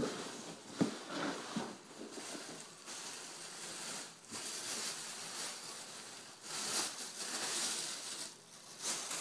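Packaging rustling and crinkling as it is handled and unwrapped, in uneven swells, with a few light clicks in the first two seconds.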